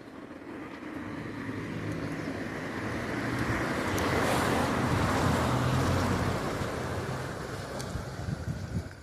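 A motor vehicle driving past, its engine and tyre noise growing louder to a peak about halfway through, then fading away.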